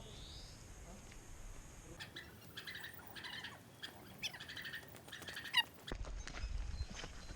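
Small birds chirping: a run of short chirps and quick whistled glides lasting about four seconds. About six seconds in they give way to a low rumble and scattered clicks.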